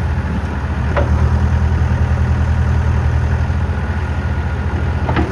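2006 Terex backhoe loader's diesel engine idling steadily, with a short click about a second in and a few more near the end.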